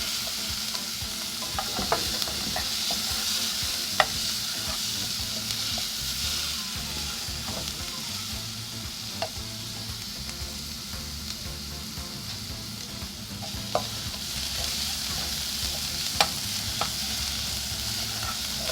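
Chopped onion and garlic sizzling in hot oil in a pot as they are stirred, with a few sharp clicks as the utensil hits the pot; the onion is being cooked until it turns transparent.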